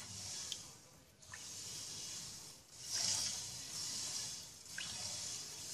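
A silicone spatula stirring undissolved sugar through water in an aluminium pan, making a gritty, hissy swish with each stroke, about one stroke a second.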